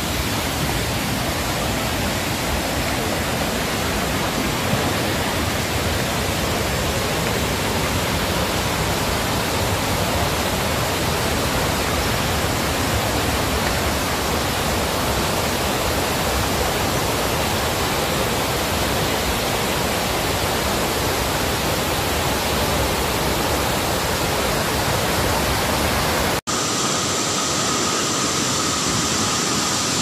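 Steady, dense rush of falling water from a waterfall. About 26 seconds in it cuts abruptly to a thinner rushing hiss with less low end and a faint steady tone.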